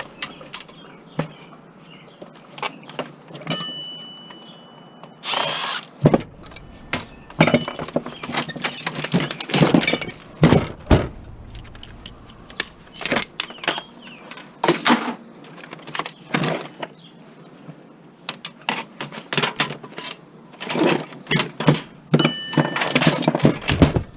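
Screws being driven out of a TV's casing with a power drill in short runs, amid knocks, clicks and rattles of plastic and metal parts being pried and handled.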